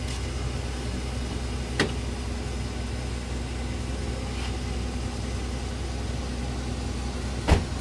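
A vehicle engine idling steadily with a low, even hum, broken by two sharp knocks, one about two seconds in and a louder one near the end.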